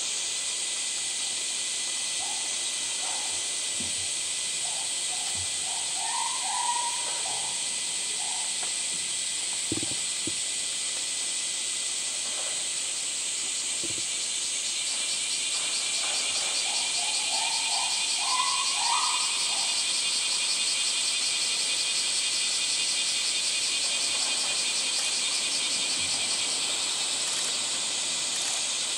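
Steady chorus of summer cicadas, a dense high hiss that takes on a fast pulsing from about halfway through. Short chirping calls come in twice, a few seconds in and again around the middle.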